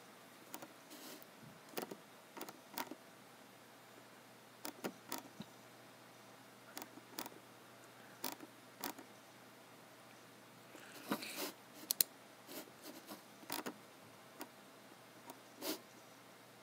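Scattered clicks of a computer mouse and keyboard, some coming in quick pairs like double-clicks, with a denser run of clicks and light rubbing about eleven seconds in.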